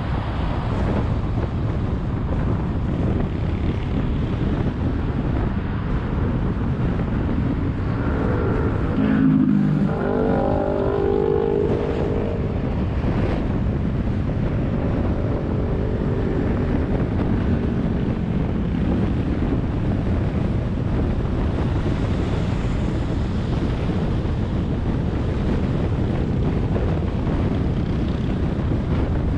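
Steady road traffic noise with wind on the microphone. About nine to twelve seconds in, a nearby vehicle's engine note stands out briefly.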